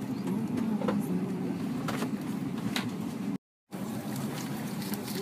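Airliner cabin noise: a steady low hum with faint passenger chatter and a few small clicks. It cuts out completely for a moment about three and a half seconds in.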